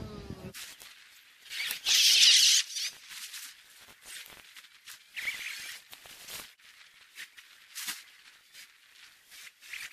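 Fast-forwarded audio of a roadside chain repair: short, high-pitched squeaky chirps and scratches, with the loudest burst about two seconds in.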